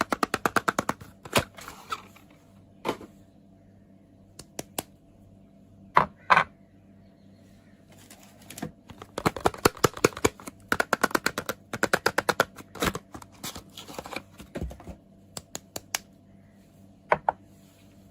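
Soap bars and their packaging handled and opened: crisp crackling clicks in quick runs of about ten a second, near the start and again through the middle, with single sharp clicks in between.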